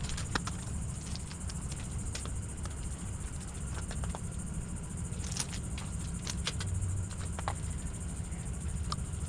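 Steady high-pitched insect chirring, with a low rumble underneath and scattered small clicks and taps.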